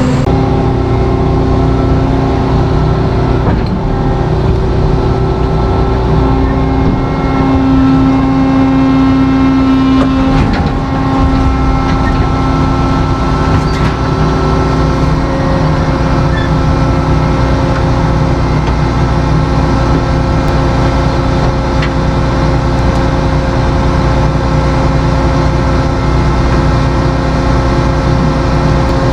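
Tractor engine running steadily, a loud, even drone whose pitch shifts a few times.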